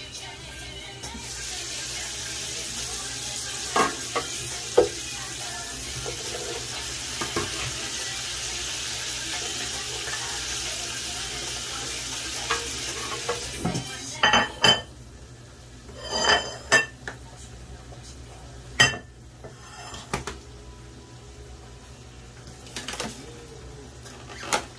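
Pots and utensils clinking and knocking, with a steady hiss through the first half that stops about 13 seconds in. After that come scattered sharp clinks and knocks.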